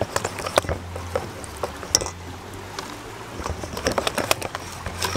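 Wire whisk beating an egg into thick flour batter in a stainless steel bowl: wet squishing with irregular clicks of the wires against the bowl, coming faster in the second half.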